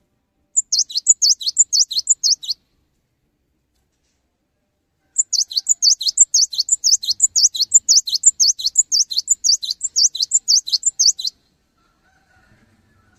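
Cinereous tit (gelatik batu) singing: quick runs of high, down-slurred notes repeated about five times a second. There is a short run of about two seconds, a pause, then a longer run of about six seconds.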